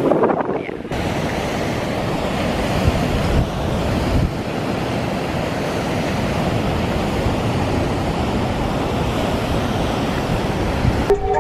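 Rough ocean surf breaking over black lava rocks, with gusty wind buffeting the microphone. Music comes in near the end.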